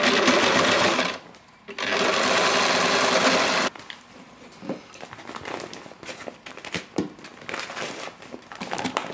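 Singer sewing machine running in two steady runs of about one and a half and two seconds, with a short stop between, stitching a strip onto the fabric. After that, quieter scattered rustling and clicks of the fabric and the woven plastic bag being handled.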